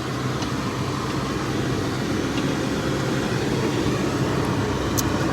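An engine running steadily at a constant pitch, with one faint click about five seconds in.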